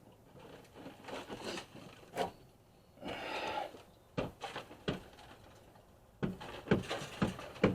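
Scattered metallic clicks and knocks as a brake caliper and its worn pads are handled and taken out, with a short scraping rattle about three seconds in and a quick run of knocks near the end.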